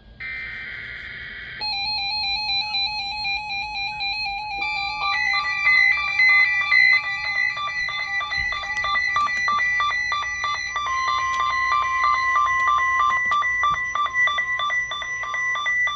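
Several NOAA weather radio receivers sounding their alert alarms at once, set off by the weekly test signal of weather radio station KJY68. A short burst of coded alert tones is heard in the first second or so. A pulsing beep starts about two seconds in, and more beeping alarms at different pitches join about five seconds in.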